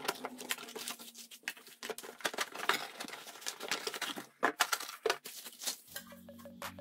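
Packaging rustling and crinkling as a clear acrylic makeup organizer is unpacked from its cardboard box, with scattered sharp clicks and knocks. Background music comes in near the end.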